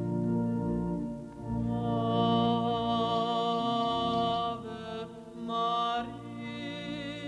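Slow music on organ with sustained held chords, joined about two seconds in by a man singing with vibrato.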